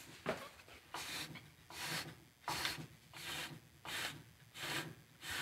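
Dana 44 ring and pinion gears being turned by hand under tension, the teeth meshing through yellow marking compound to run a gear contact pattern. It makes a short scraping stroke about every three-quarters of a second, seven or so in all.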